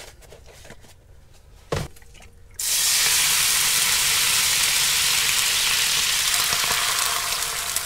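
A single knock, then about two and a half seconds in water poured from a kettle hits a hot frying pan and bursts into a loud, steady sizzle and hiss, easing slightly near the end. The water is poured in to loosen the pan for washing.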